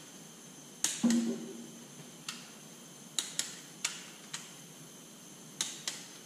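Torque wrench working the front cover bolts of a Detroit 3-53T diesel: a string of sharp metallic clicks, in ones and twos, with a louder ringing clink about a second in.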